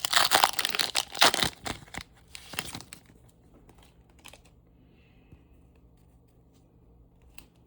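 Trading-card pack wrapper being torn open and crinkled, loud and crackly for about the first three seconds. After that only a few faint ticks.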